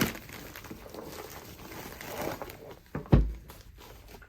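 Packaging being handled with a soft rustle, then a single heavy thud about three seconds in, as of a boxed part being set down.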